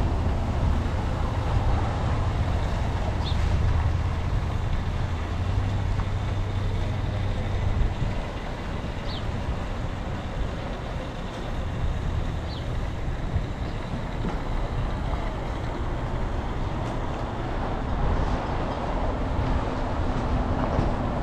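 Motorcycle running on the road, its low engine hum under steady wind and road noise; the hum drops back a little after about eight seconds.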